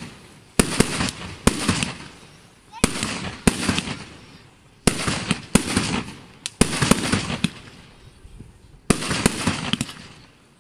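Aerial fireworks shells bursting in quick succession, about ten sharp bangs in clusters, each followed by a fading tail. There is a short lull a little before the end, then more bangs.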